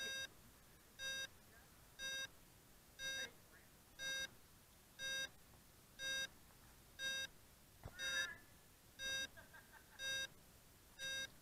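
Electronic beeper on a crashed Blade 350 QX quadcopter, sounding a short, shrill beep about once a second in a steady, even rhythm. A faint click comes about eight seconds in.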